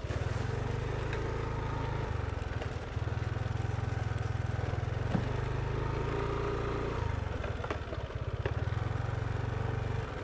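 Moped engine running under throttle on a rough dirt track, easing off briefly twice, with scattered light clicks and knocks. At the very end the throttle closes and the engine drops toward idle.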